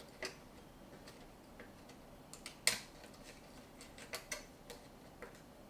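Scattered light clicks and taps of the Xiaomi Zink printer's small plastic and metal parts being handled during disassembly, irregularly spaced, the sharpest a little under three seconds in.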